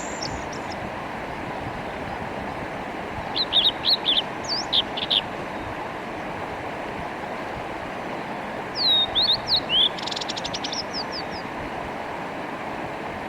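Male blue-and-white flycatcher singing two phrases of clear, sliding high whistles, the second ending in a fast buzzy trill, over the steady rush of a mountain stream.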